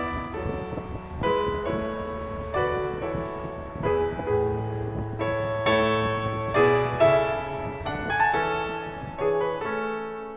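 Background piano music: a gentle run of notes and chords.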